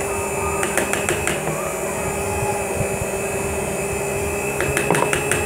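Electric stand mixer running at top speed, whipping chantilly cream and doce de leite together: a steady motor hum with a few light clicks about a second in and again near the end.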